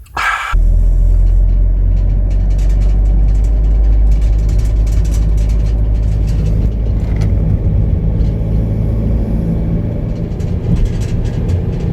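Peugeot Partner van being driven: a steady low engine and road rumble. A brief, sharp burst of noise comes at the very start.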